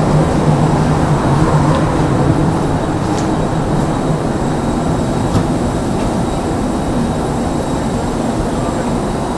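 Steady drone of airport jet-bridge and parked-aircraft machinery: a low hum with a faint high whine, and a couple of faint knocks.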